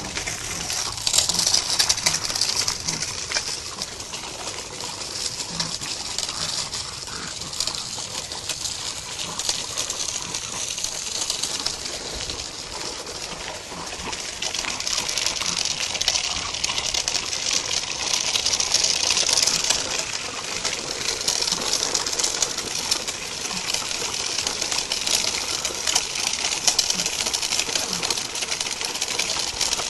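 Outdoor ambience on a walk: footsteps and rustling handling noise from the moving camera over a steady hiss, with birds chirping in the background.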